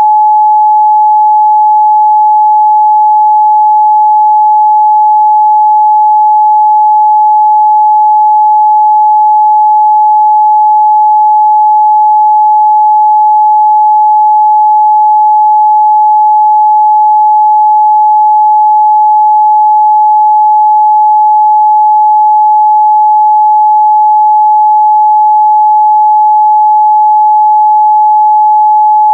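A steady, loud pure sine-wave test tone at 852 Hz, one unchanging pitch with no other sound.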